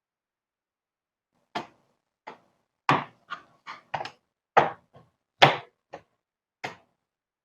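Sharp plastic clicks and knocks, about a dozen at irregular spacing, as a laptop's plastic bottom cover is pressed and snapped back into place.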